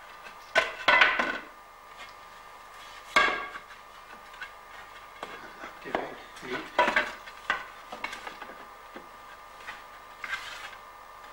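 Wooden barrel staves knocking and clattering against one another and the hoop as they are stood up by hand to set up a herring barrel; a handful of sharp wooden knocks, the loudest about a second in and about three seconds in.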